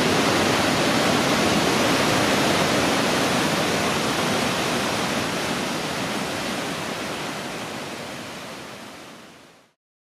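Waterfall pouring into a canyon pool: a steady rush of falling and churning water. It fades away over the last few seconds and stops just before the end.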